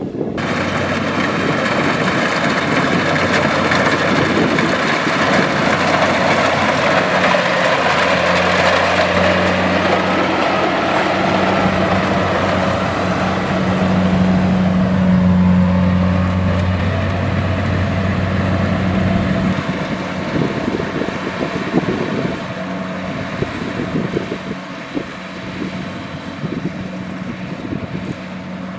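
Kubota DC-70X combine harvester's engine running: a steady drone that is loudest through the middle and eases off over the last third.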